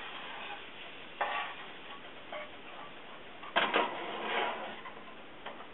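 A spoon stirring tomato sauce in a frying pan, scraping over the pan with a few louder strokes, the strongest about a second in and just past halfway, over a steady low hiss from the heating sauce.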